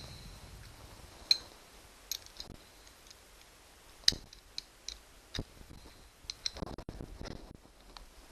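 Irregular sharp metal clicks and taps of hand tools, a socket wrench and extension being handled and fitted together; two louder clicks about a second and four seconds in, and a quick cluster near the end.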